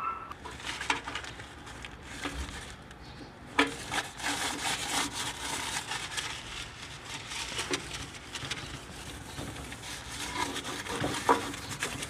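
Rubbing, scraping and scattered clicks of a hand working inside an open microwave oven's cavity. It starts with a knock about three and a half seconds in.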